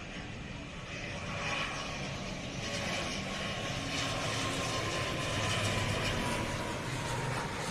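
ATR turboprop airliner on its landing approach, the engines and propellers droning. A thin whine slowly falls in pitch as it passes, and the sound grows louder over the first couple of seconds.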